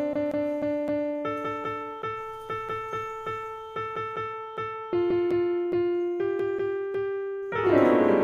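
Background music played on a piano-like keyboard: a light melody of repeated notes over held bass notes, swelling louder with a flourish of many notes near the end.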